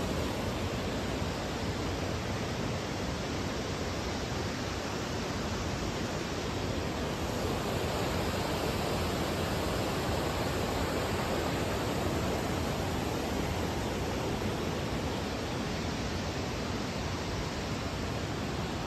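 Steady rushing of river water spilling over a low weir and small cascades.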